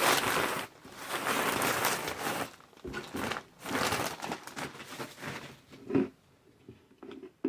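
Loose shredded Easter grass crinkling and rustling as it is gathered up by hand, steady for the first couple of seconds, then in shorter handfuls that die away, with a couple of light knocks near the end.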